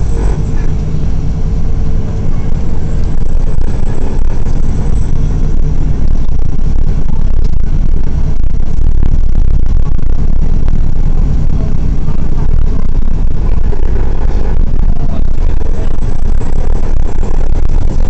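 Engine and road noise of a moving single-deck bus heard from inside the passenger cabin: a loud, steady low rumble.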